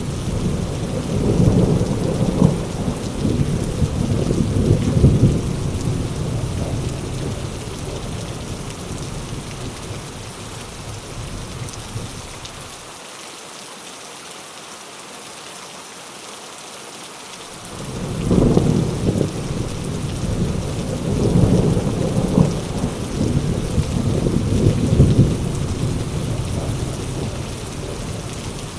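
Heavy rain pouring steadily, with long rolls of thunder: one rumbling at the start and dying away by about ten seconds in, and another building from about eighteen seconds in and fading toward the end.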